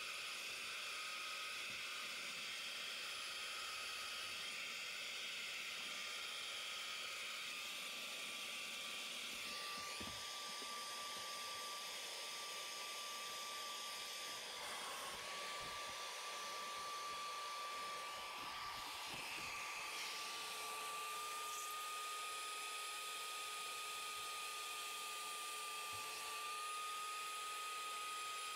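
Carpet extractor's vacuum motor running steadily with a high whine, pulling through the upholstery tool on a cloth car seat. The whine dips briefly about halfway through.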